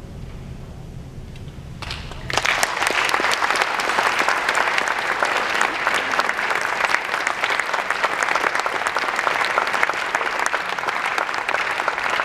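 The orchestra's last low held note ends, and about two seconds in the audience breaks into steady, dense applause.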